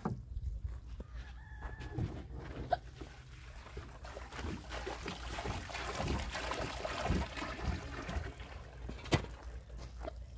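Water poured from a plastic jerrycan into a wheelbarrow of sand and cement mix, a rushing splash in the middle few seconds, among knocks of the can being handled and a steady low rumble.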